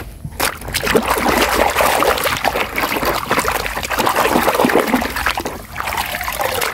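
Muddy water sloshing and splashing in a basin as a toy is swished through it by hand, with continuous irregular splashes and drips.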